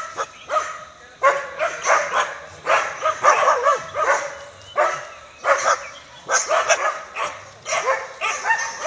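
Several dogs barking in quick succession, harrying a wild elephant.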